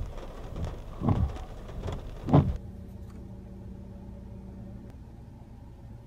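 Three loud, low thumps in the first two and a half seconds over a rushing hiss that cuts off suddenly, then a steady low hum from a car.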